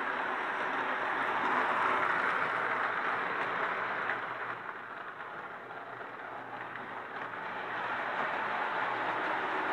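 1936 Marx 0-4-0 tinplate toy train with its tin cars running around an O-gauge track loop, making a steady rolling noise. It is loudest about two seconds in, dips for a few seconds as the train moves to the far side of the loop, then rises again.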